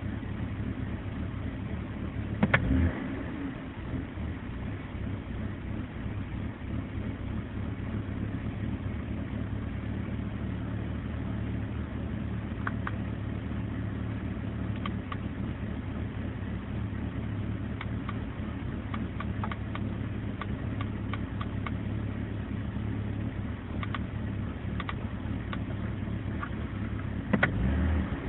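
BMW 325i E46's 2.5-litre straight-six idling roughly, with scattered sharp pops over the steady hum. There is a louder thump about two and a half seconds in and another near the end.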